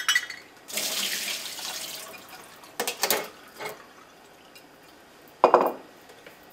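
Water pouring into a kitchen sink as soaked cashews are drained, lasting a second or so, with clatters of a bowl and strainer against the sink; the loudest knock comes about five and a half seconds in.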